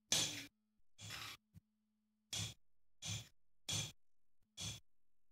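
Knife slicing through a cucumber against a plate, about six short crunchy cuts at an even pace of roughly one every 0.7 s.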